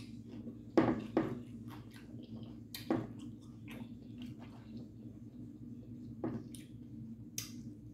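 Close-up eating sounds: wet chewing and squelching of sauce-soaked food and cucumber, with scattered sharp smacks and clicks. The loudest comes about a second in, all over a steady low hum.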